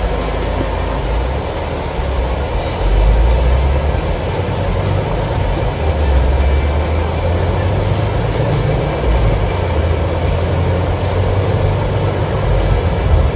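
Car in motion: steady road and engine noise with a deep rumble that swells and fades every few seconds.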